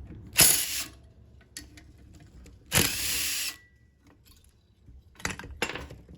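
Tool working the screws off a two-stroke lawnmower engine's housing: short mechanical ratcheting or whirring bursts, one about half a second in, a longer one near three seconds, and a quick pair near the end.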